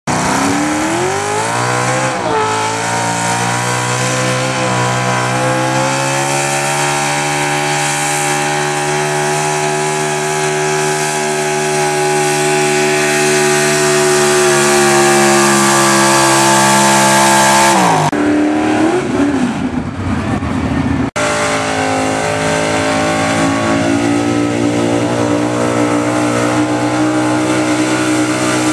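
Gas-class pulling trucks' engines at full throttle pulling a weight-transfer sled. The first revs up over the first couple of seconds, holds high, steady revs, then falls away as the pull ends; after a sudden cut a second truck's engine runs at high, steady revs.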